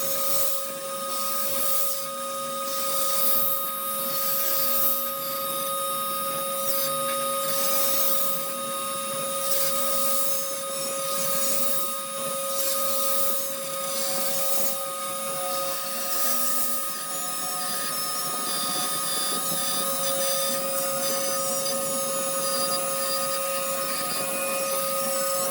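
CNC router cutting 8 mm PVC board: the spindle gives a steady whine while shorter tones step up and down in pitch as the machine moves. A pulsing hiss fades out about ten seconds in.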